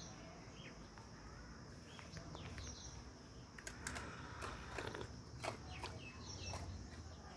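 Birds chirping now and then, faint, with a run of sharp clicks and taps in the second half.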